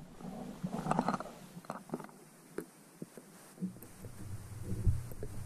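Muffled underwater handling noise from a GoPro hanging on a rope in well water: scattered soft knocks and clicks, then a low rumbling from about four seconds in that swells near the end.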